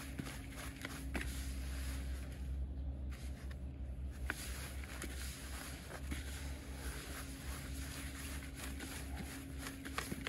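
Hands kneading and crumbling damp fishing groundbait in a bucket: irregular crunching and rustling, with a steady low hum underneath.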